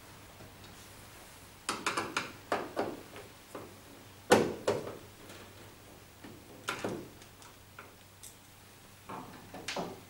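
Plastic clicks and knocks from the tumble dryer's plastic housing and its screws being worked loose and handled. Several short clusters of clattering, the loudest sharp knock about four seconds in.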